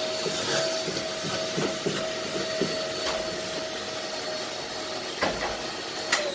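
Vacuum cleaner running steadily with a high whine over its airflow noise, with a few light knocks. Near the end there is a click as it is switched off, and the motor note starts to fall as it spins down.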